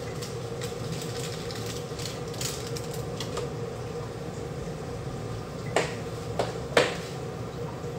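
Butter sizzling in a frying pan on a gas hob, a steady crackling hiss. Three sharp knocks come close together about six to seven seconds in.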